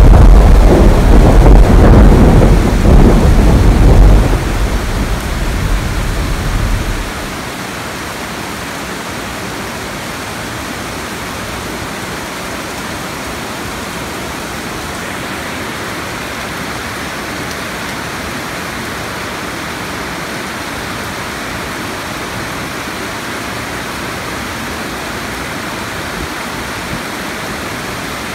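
A loud low rumble of thunder over heavy rain, dying away about seven seconds in. After that the rain falls steadily as an even hiss.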